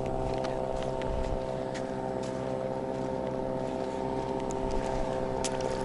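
Steady engine drone holding one even pitch throughout, with a few faint clicks over it.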